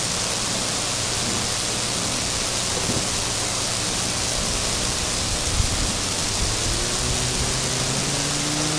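Half-track snow buggy's engine running in the distance, faint under a steady hiss, its pitch slowly rising near the end as the buggy speeds up and comes closer.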